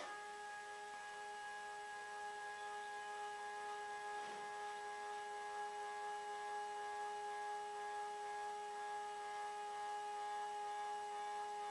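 CNC hot-wire foam cutter running, its drive motors giving a steady, even whine with several overtones while the wire cuts slowly through a foam block.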